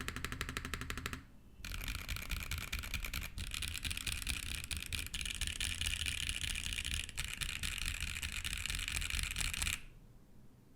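Fast typing on a custom mechanical keyboard fitted with Wingtree Yunie tactile switches: a steady run of mid-tone clacks. The typing breaks off briefly about a second in, resumes, and stops shortly before the end.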